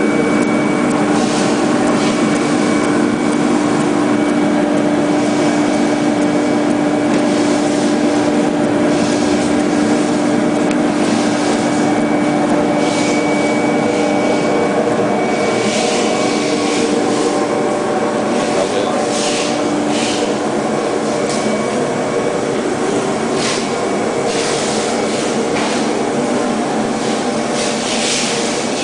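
CNC contour foam cutting machine with a wire blade running steadily as it cuts foam: a continuous machine hum with several held tones under a hiss, with short scratchy sounds coming more often in the second half.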